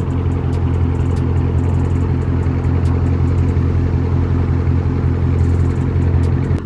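2020 Dodge Charger Scat Pack's 6.4-litre HEMI V8 exhaust running at a steady, low-pitched drone through Carven 5-inch exhaust tips, without any rise in revs. It comes across a bit muffled, not loud. It cuts off suddenly near the end.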